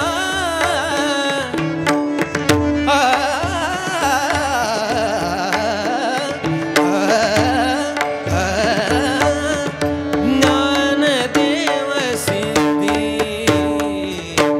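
Indian devotional abhang music: wordless, wavering melismatic singing over a steady held drone, with hand-drum strokes and sharp percussion throughout.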